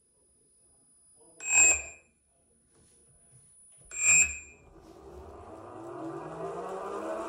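Electric skateboard's brushless outrunner motors under motor detection by a Flipsky FSESC 6.6 speed controller: two short ringing tones about two and a half seconds apart, then a motor whine rising steadily in pitch and loudness as the motor spins up.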